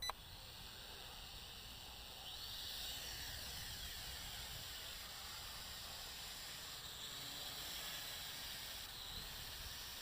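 JXD 509 toy quadcopter's motors and propellers whirring in flight: a thin high whine over a hiss, gliding up and down in pitch as the throttle changes, a little louder from about two seconds in.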